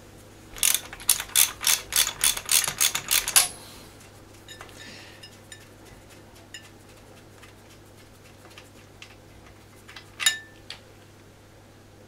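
Hand ratchet clicking in quick strokes for about three seconds while a spark plug is unscrewed from the cylinder head of a BSA A65 Spitfire twin. Faint small metallic handling clicks follow, then one sharper click about ten seconds in.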